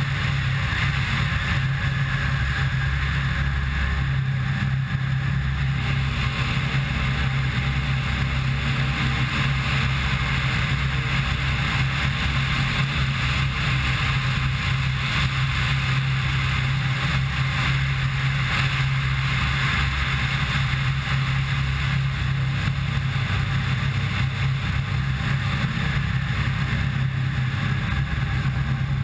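Pilatus PC-6 Turbo Porter turboprop engine and propeller in flight, a steady drone with a constant low hum, heard from a camera mounted outside on the wing strut.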